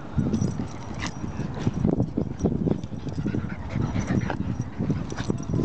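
A shiba inu and another dog play-fighting: irregular scuffling with short dog vocal sounds.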